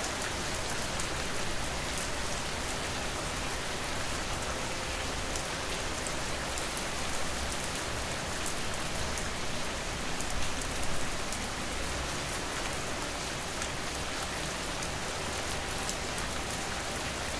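Steady rain falling on a surface, with scattered drops tapping.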